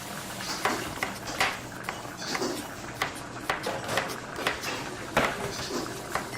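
Restaurant kitchen ambience: a steady hiss of cooking under irregular clinks, taps and clatters of utensils and dishes, with a sharper knock about five seconds in.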